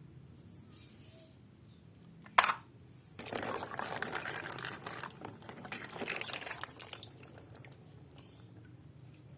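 A sharp click or knock, then about four seconds of rustling and crinkling handling noise that fades out.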